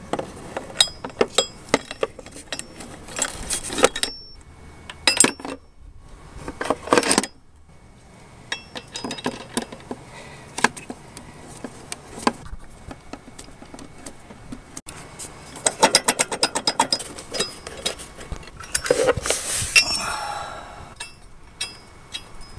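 3/8-inch-drive flex-head ratchet with a 14 mm socket clicking in quick runs as it turns bolts on an engine bracket, mixed with sharp metal clinks of the socket and tools. The bursts come several times with short pauses between.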